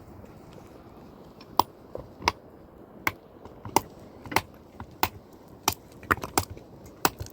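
Repeated sharp blows on wood, about a dozen strikes at a steady working pace of roughly one every two-thirds of a second, starting about a second and a half in.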